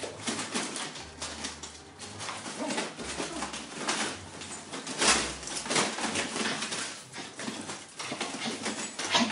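Puppies scrambling in and out of a large dog food bag: the bag's crinkling and rustling comes in irregular crackles as they push through it.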